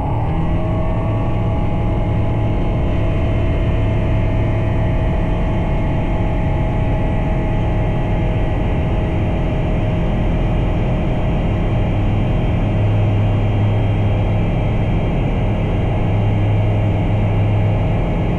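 Bristell Classic light aircraft's piston engine and propeller droning steadily in flight, its note rising slightly right at the start and then holding even.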